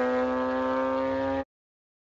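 S10 race truck's engine running hard at high, nearly steady revs, its pitch creeping slowly upward. The sound cuts off suddenly about one and a half seconds in.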